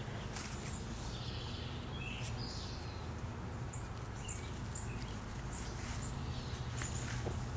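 Outdoor ambience: a steady low rumble under small birds chirping a run of short, high calls.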